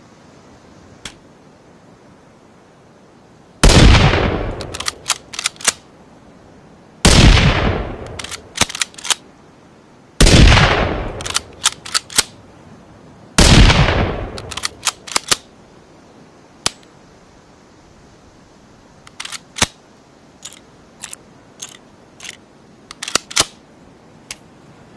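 Rifle-shot sound effect, a Ruger American rifle blended with a rimfire rifle: four shots about three seconds apart, each fading over about a second and followed by a quick run of sharp clicks. More scattered clicks come near the end.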